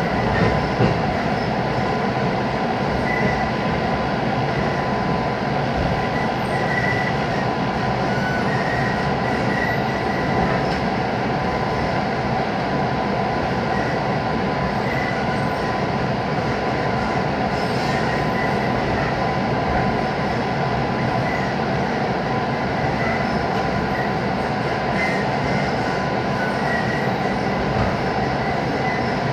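Steady running noise of a JR West 221 series electric train heard inside the car while it runs at reduced speed: an even rumble with a constant high whine and short, intermittent squeals on top.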